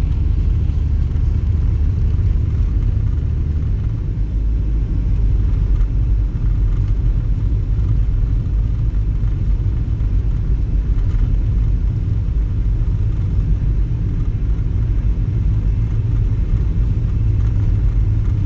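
Steady low road rumble inside the cabin of a Mk4 Volkswagen Jetta TDI driving slowly on a snow-covered road: engine drone and tyre noise that stay even throughout.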